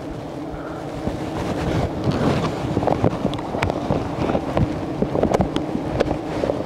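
Swarm of wild honeybees buzzing around their exposed comb, a steady drone, with wind rumble on the microphone and scattered short clicks.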